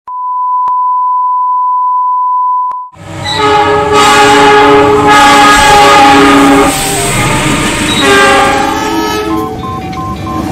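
A steady high test-tone beep, sounding with the colour-bar test card, for about three seconds. Then diesel locomotive horns sound in loud, long chords of several notes, changing every second or so, over the rumble of passing trains.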